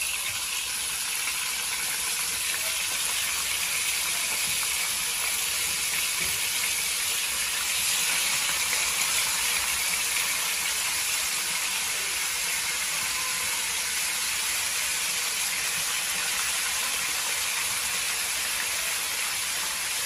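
Pieces of fish sizzling steadily in hot oil in a wok, a little louder about eight seconds in as more pieces go into the pan.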